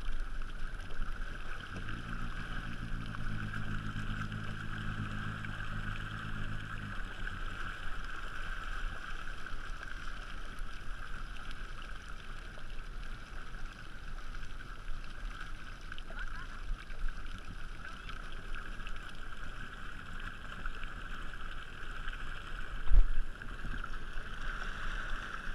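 Personal watercraft engine running, heard muffled under steady water and wind noise, with a steady low hum from about two to seven seconds in. A single thump comes near the end.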